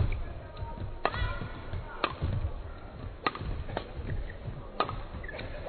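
Badminton rackets striking the shuttlecock in a doubles rally: sharp hits about once a second, with low thuds of the players' footwork on the court beneath.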